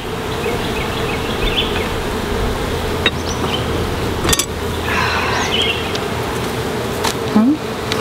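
Honeybees humming loudly around an open hive, a steady dense buzz, with a few sharp clicks and knocks scattered through it.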